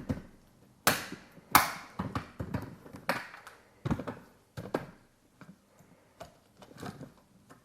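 Irregular sharp clicks and taps of a 1/24-scale diecast model car being handled, its small plastic and metal parts clicking. The loudest click comes about a second and a half in, and the clicks grow fainter and sparser after about five seconds.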